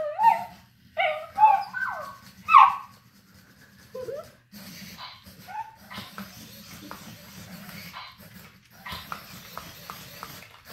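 A few short, high dog-like yips and whimpers that slide up and down in pitch during the first three seconds, with one more about four seconds in, followed by quieter clicking and scuffing on a hardwood floor.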